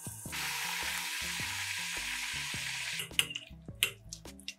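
Pot of dumplings boiling, a steady hiss that stops abruptly about three seconds in. Then come a few sharp clinks and taps as a metal mesh strainer tips the drained dumplings into a ceramic bowl.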